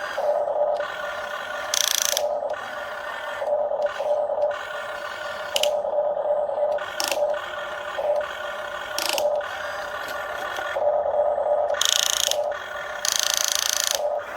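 Electric motors of a Huina RC grapple excavator whining in short, repeated runs as its controls are worked, starting and stopping every second or so, with a few brief, louder scraping hisses, the longest near the end.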